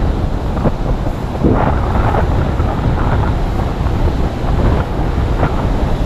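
Strong wind buffeting the microphone: a steady, loud low rumble, with surf in the background. A hand scrapes through dry sand now and then.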